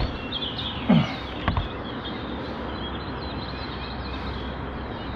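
Steady outdoor river ambience with faint bird chirps, and a few brief knocks and handling noises in the first two seconds as a channel catfish is unhooked.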